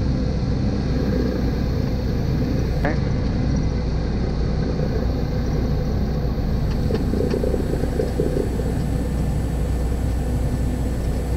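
Single-engine training airplane's engine and propeller droning steadily, heard inside the cockpit.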